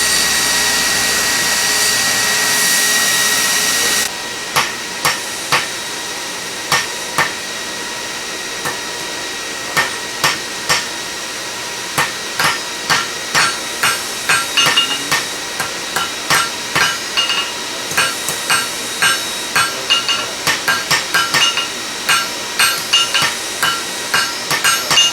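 Blacksmith's hand hammers striking steel on anvils: sharp ringing blows, sparse at first and then coming several a second from about halfway through. It opens with a steady roaring hiss that cuts off suddenly about four seconds in.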